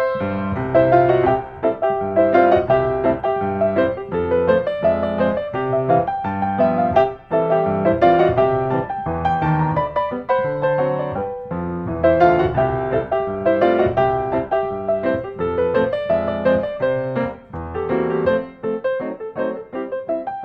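Background piano music: a steady run of single notes with chords beneath.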